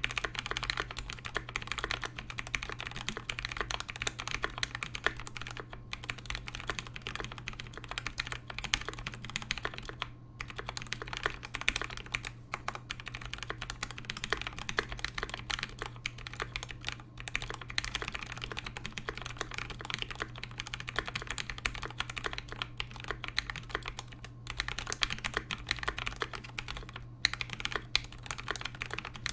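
Fast, continuous typing on a KBD67v2 65% mechanical keyboard with Zealios v2 67g tactile switches and Cherry stabilizers lubed with Krytox 205g0, on a brass plate with GMK keycaps. Rapid key clicks with a few short pauses, including one near the start and several others later.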